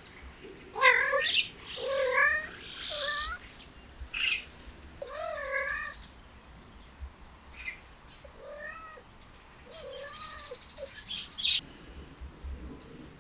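Cats meowing in a series of wavering, drawn-out calls, loudest in the first half and quieter later on.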